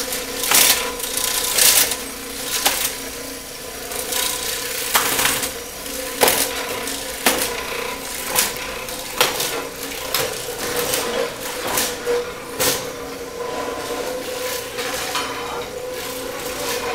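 Electric walk-behind floor scraper running with a steady hum while old flooring cracks and knocks under it in sharp, irregular hits.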